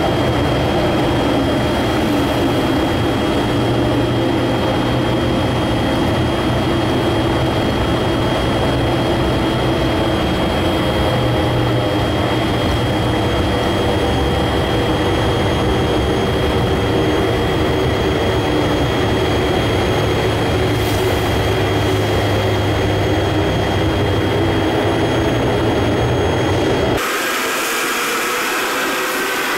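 Steady engine and tyre rumble of a car driving through a road tunnel, with a faint steady high whine. Near the end the low rumble cuts out abruptly and a thinner whirring with a wavering pitch takes over.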